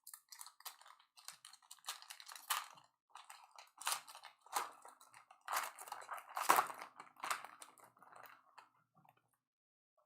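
Crinkling and rustling of a trading-card pack wrapper being torn open and the cards handled, in irregular crackles that stop about nine seconds in.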